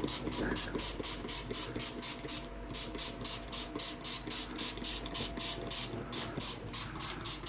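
Bleach cleaner sprayed from a trigger spray bottle, a quick run of short hissing squirts at about four a second that stops near the end.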